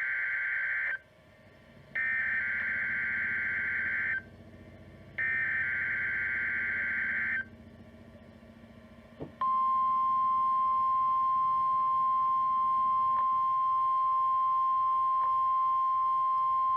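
NOAA Weather Radio emergency alert test signal. The SAME digital header comes first: a burst of harsh data sound ends about a second in, and two more bursts of about two seconds each follow with short gaps. Then, about nine seconds in, the steady 1050 Hz warning alarm tone starts and holds, sounded for the weekly test of the warning alarm system.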